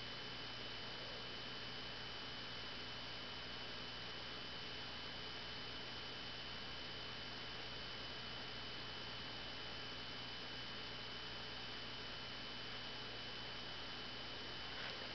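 Steady background hiss and low hum with a thin, constant high-pitched whine; no distinct sound stands out.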